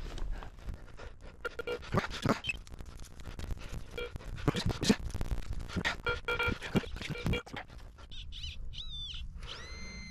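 Metal detecting spade digging into field soil: a dense run of irregular crunches, scrapes and knocks as the blade cuts and levers the earth. Near the end come a few short chirping glides and a briefly held whistle-like tone.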